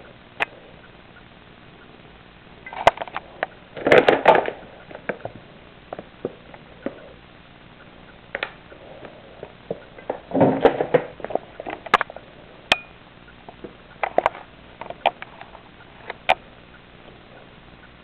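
A gerbil moving about in wood-shaving bedding: scattered clicks and scratches, with two louder bursts of rustling about four seconds in and again about ten seconds in.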